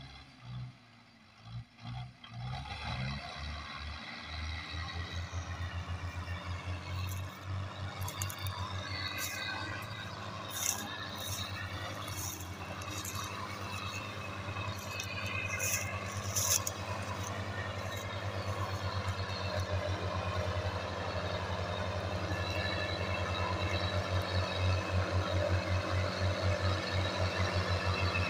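Two Russian tractors' diesel engines coupled in tandem and labouring under heavy load as they haul a fully loaded sugarcane trolley, a deep even chugging that sets in about two seconds in and grows louder toward the end. Sharp high clicks and clatter come and go through the middle.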